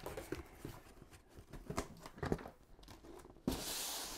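Packaged items being rummaged through in a cardboard box: scattered light knocks and rustles, then a sudden, louder rustle lasting under a second near the end.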